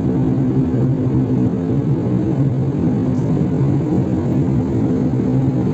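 Steady cabin drone of a jet airliner in cruise, heard from a window seat near the wing-mounted turbofan engine: a constant rush of air with a low, even engine hum beneath it.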